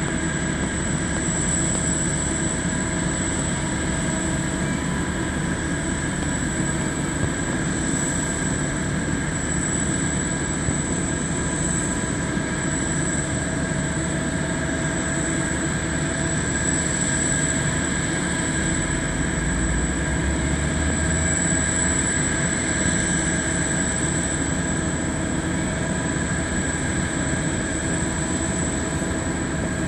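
Steady high-pitched whine over a low rumble from aircraft and ground equipment on an airport apron around a parked Boeing 747 freighter. A deeper rumble swells briefly about twenty seconds in.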